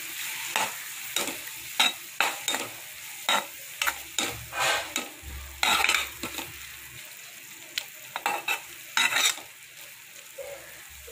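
A spatula stirring and scraping through capsicum and ground peanut masala in a kadai, in quick, irregular strokes over a steady sizzle. The stirring thins out near the end.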